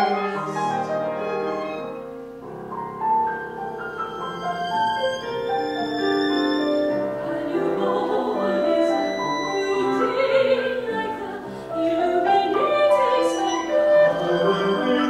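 Live chamber music for violin, clarinet and piano in a contemporary classical style, with operatic singing from soprano and baritone at times; a loud held sung note breaks off at the start and the instruments carry on with held, overlapping notes.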